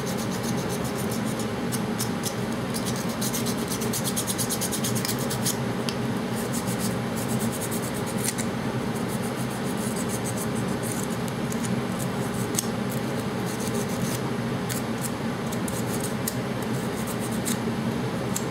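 Small piece of 220-grit sandpaper rubbed back and forth by hand against the cut edge of a model horse, a rapid, continuous scratching as the sharp edges are smoothed off. A heater runs steadily underneath.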